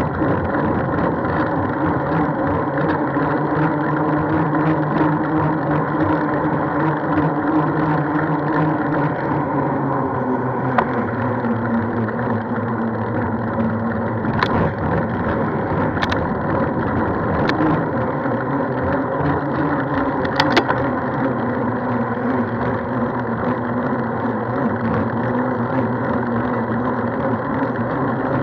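Steady running noise of a moving vehicle, its pitch shifting slightly about ten seconds in, with a few sharp clicks over it.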